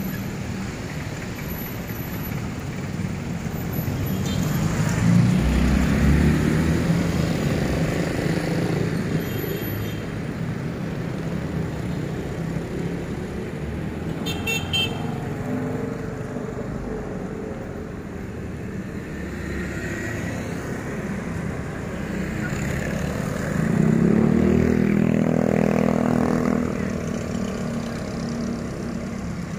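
Road traffic at a city intersection, with cars, a small pickup truck and motorcycles driving past. The engine sound swells as vehicles pass close, loudest about five seconds in and again near the end.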